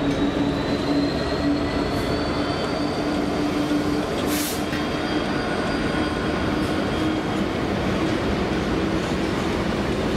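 Class 08 diesel shunter moving slowly along yard track, its English Electric six-cylinder engine running steadily, with a faint high wheel squeal that slowly rises in pitch. A brief hiss about four seconds in.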